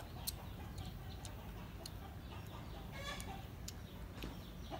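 Chickens clucking in the background, with a short call about three seconds in, and a few sharp clicks, the loudest just after the start.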